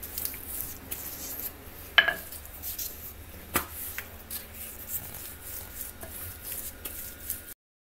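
Wooden rolling pin rolling dough on a floured marble countertop: soft rubbing with light knocks of the pin on the stone, the sharpest about two seconds in. The sound cuts off abruptly near the end.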